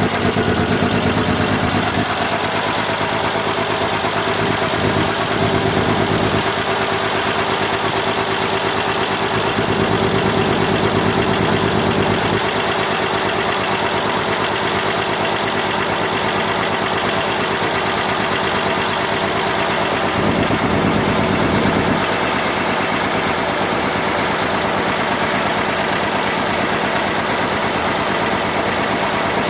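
15 HP three-phase electric air compressor running steadily, its electric motor driving the belt-driven piston pump.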